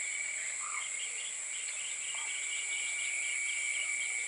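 Rice-paddy chorus of frogs and insects: a steady high insect drone with a rapid run of short frog calls, about four a second.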